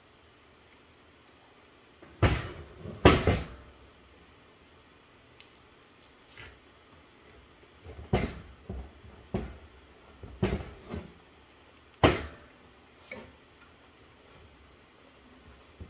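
A series of about ten irregular hard knocks and clunks, the loudest two close together a couple of seconds in and another about twelve seconds in: a climbing stick and tools being handled and set down on a plywood workbench.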